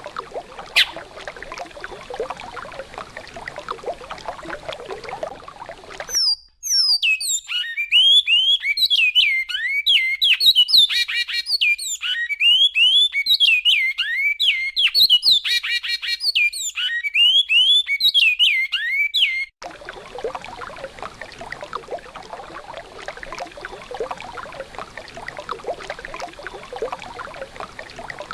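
Bicudo (great-billed seed finch) singing the classic goiano song: a phrase of quick, clear whistled notes sliding up and down, lasting about thirteen seconds. Before and after it comes a steady rush of flowing river water.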